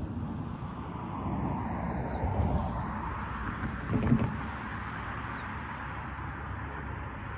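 Road traffic passing, a tyre-and-engine hiss that swells and fades, with a thump about four seconds in. Two short bird chirps sound over it.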